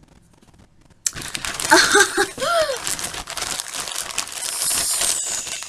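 Plastic bag crinkling and rustling as soft squishy toys are handled and pushed into it, starting suddenly about a second in and continuing steadily.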